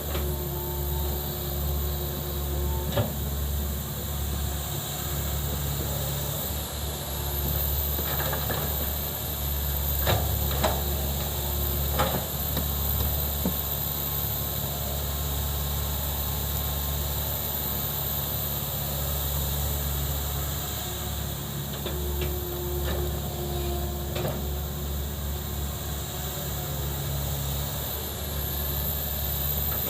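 Excavator's diesel engine running steadily under work, with a few sharp knocks and clanks from the machine working.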